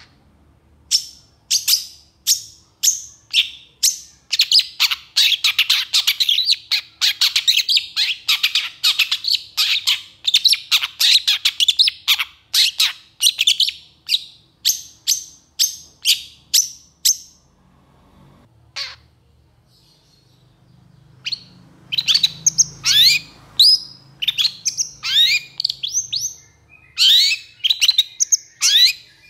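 Long-tailed shrike (pentet) singing in long rapid-fire bursts of sharp, shrill notes, an agitated 'emosi' song. After a break of a few seconds about two-thirds through, it resumes with quick downward-sliding notes.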